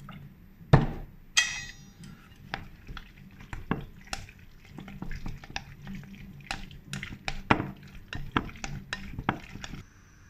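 A utensil stirring raw chicken pieces in a glass bowl to marinate them, with irregular clicks and clinks against the glass throughout. A sharp knock comes near the start, and a clink that rings briefly follows soon after.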